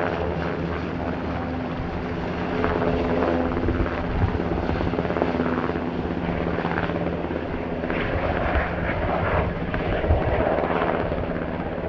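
Steady mechanical drone of a running engine with a rushing noise over it, swelling a little from about two and a half seconds in and again near the end.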